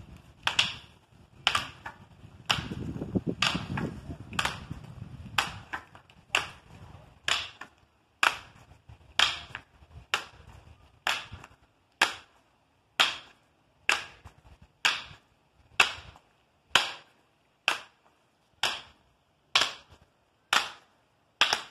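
Wooden practice sticks clacking together in a partner drill, one sharp crack about every second in a steady rhythm.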